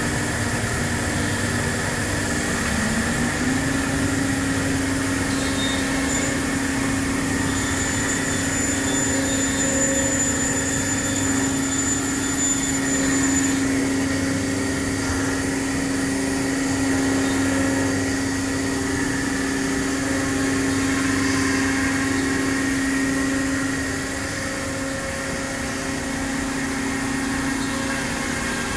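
Cosmec Conquest 515 CNC router running: a steady machine hum with a spindle whine that rises in pitch about two to three seconds in, just after picking up a new tool, then holds steady. It turns a little quieter for the last few seconds.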